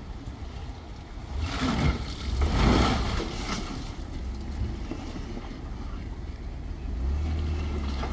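Off-road vehicle engine running low with a steady rumble. A rushing noise swells about a second and a half in and fades after three seconds. The low hum grows steadier and stronger near the end.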